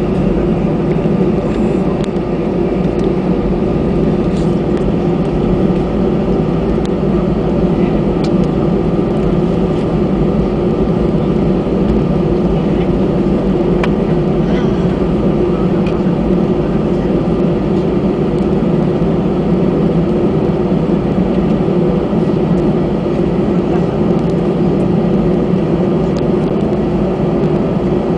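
Steady cabin drone of an Airbus A319 airliner taxiing, heard from a window seat over the wing: jet engine hum and rumble with faint steady tones, holding an even level.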